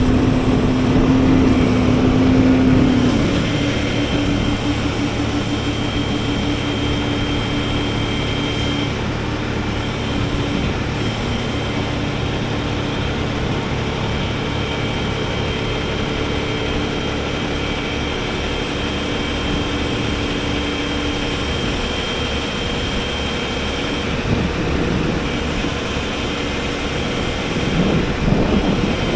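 A 6x6 rollback tow truck's diesel engine running steadily with its hydraulics engaged while the tilt bed is worked with a telehandler on it. A thin high whine comes in a few seconds in and stops near the end.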